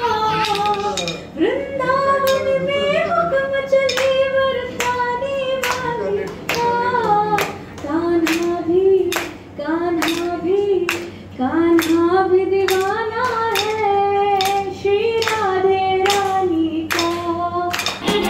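A young woman sings, holding long notes with a waver in them. Steady hand claps keep the beat under her voice.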